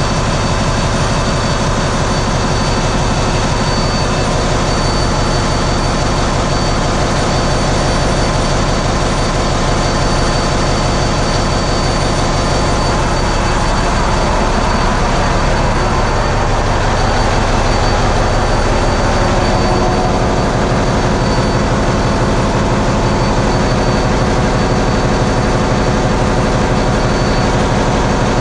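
Hyundai HiMSEN four-stroke diesel engines running in a ship's engine room: a loud, steady, dense mechanical din with a fast even pulsing low down and a faint steady high whine over it.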